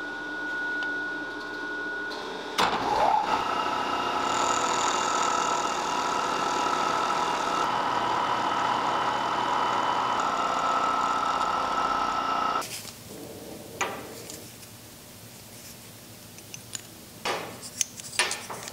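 Vertical milling machine running a 1/4 inch ball nose end mill through a metal bar to cut a groove: a steady whine with a cutting hiss that stops abruptly about twelve seconds in. After that come light clicks and knocks of metal pieces handled on a steel bench.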